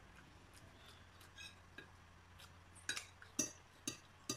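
Metal cutlery clinking against plates and bowls: a few faint taps, then four sharp clinks in the last second and a half.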